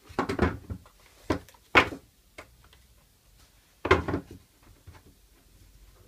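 Wooden blocks and a clamp knocking and clattering against the edge of a workbench as they are fitted and tightened: a handful of separate knocks, the loudest about two seconds in and a bunch about four seconds in.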